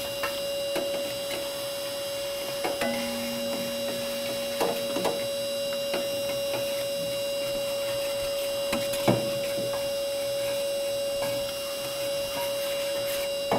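Pellet ash vacuum running steadily, a constant motor whine with a hiss of suction, while its nozzle sucks ash and debris out of a pellet grill's burner pot, with scattered clicks as debris hits the nozzle.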